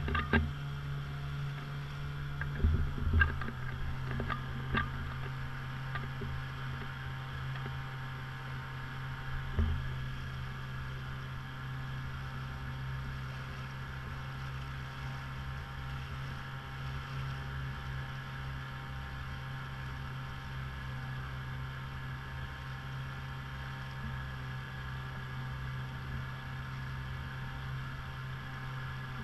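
A small boat's motor runs steadily with an even low hum as the inflatable dinghy moves across choppy water. A few knocks come in the first five seconds and once more near ten seconds.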